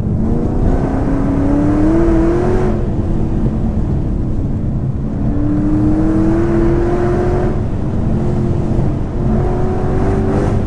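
Ford Mustang's 5.0-litre V8 under hard acceleration, its note climbing in pitch three times and dropping back between the climbs as the driver works the throttle and gears, over steady road rumble.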